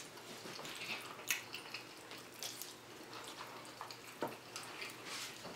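Faint eating sounds at a table: wet chewing and mouth clicks, with plastic forks tapping and scraping on plates. A sharper click comes about a second in and another about four seconds in.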